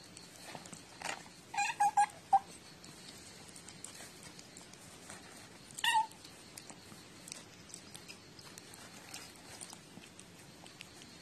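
A cat's short, high cries: four quick ones close together about two seconds in, then a single yelp near the middle that sounds like 'kyain', a dog's yelp more than a cat's meow.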